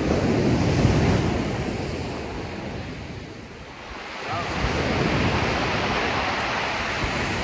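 Sea waves breaking and washing over a pebble beach, with wind buffeting the microphone. The wash swells at the start, eases around three to four seconds in, then builds again.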